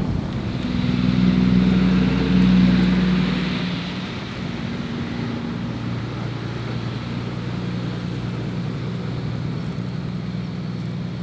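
An engine running at a steady pitch over wind noise. It is loudest for the first few seconds, then eases off and keeps running steadily.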